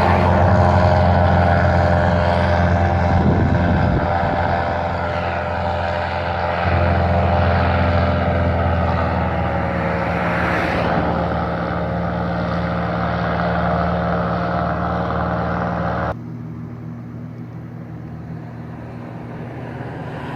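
An airboat's engine and air propeller running steadily, with a strong low drone. The sound drops off sharply about sixteen seconds in, leaving it fainter.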